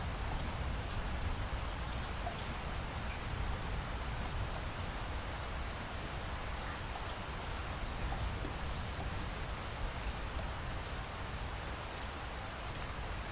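Steady rain falling, with scattered drops ticking, over a low rumble.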